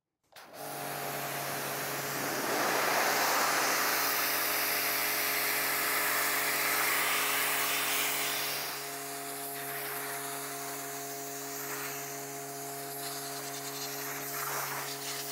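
Güde GHD-225 electric pressure washer running with its brass pump, a steady hum under the loud hiss of water jetting from the yellow 15° nozzle. The sound cuts in just after the start and is somewhat quieter from about nine seconds in.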